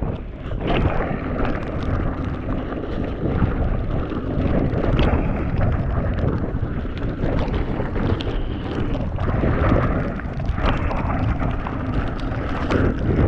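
Wind rushing over a chest-mounted GoPro's microphone as a mountain bike rides fast down a rough, wet trail. Tyre noise on the wet ground and a constant clatter of knocks and rattles from the bike run underneath.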